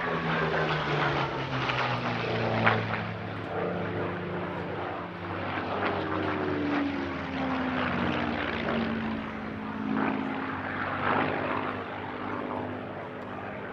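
Supermarine Spitfire PR XI's Rolls-Royce Merlin V12 piston engine running in a flypast. Its note slides down in pitch as the aircraft passes, then holds steady.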